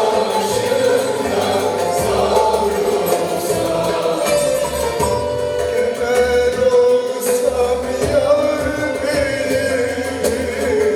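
Turkish folk song performed live: sustained singing with instrumental accompaniment.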